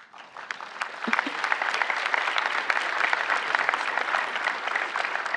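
Large audience applauding: many hands clapping together, building over the first second or so and then holding steady.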